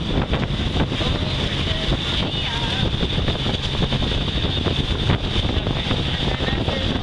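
Wind buffeting the microphone on a sailboat under way, over the rush of water along the hull and wake: a steady, noisy rumble.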